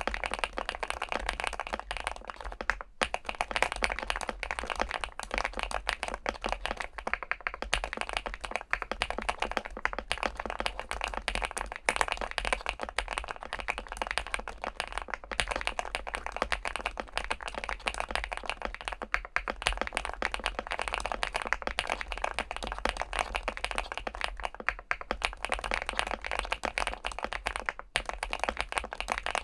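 Fast, continuous typing on a Weikav Stars75s 75% mechanical keyboard with an aluminium case and PBT keycaps: a dense run of keystroke clacks with brief pauses about three seconds in and near the end.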